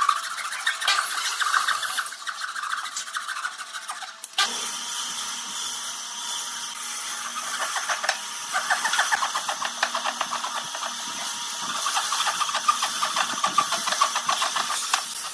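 Hand sawing with a thin-bladed wooden frame saw into a wooden board: continuous rasping push-pull strokes. There is a brief dip about four seconds in, after which the sawing goes on.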